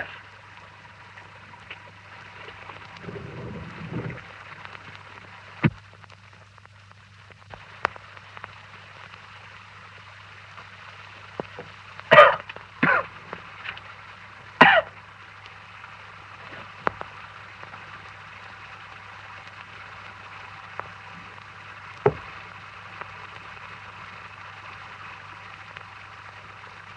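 Soda being sucked through a straw, with three short, loud slurps in the middle as the glass is drained to the bottom, and a few faint clicks, over the steady hum and hiss of an early sound-film track.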